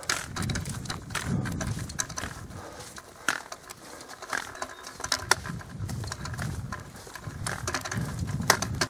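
A hiker carrying a heavy backpack walking on a forest track. Footsteps and the rustle of the pack and straps come through as many small clicks, under repeated low puffs of his breathing close to the microphone.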